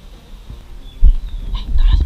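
Heavy, dull thuds of running footsteps jolting a body-worn action camera, beginning about a second in. Near the end a short high-pitched sound is mixed in with them.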